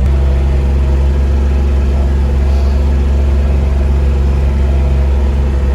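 Vehicle engine running steadily, a loud, even low drone.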